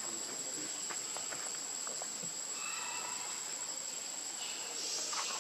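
Forest insects droning steadily in a continuous high-pitched whine, with a few faint ticks about a second in.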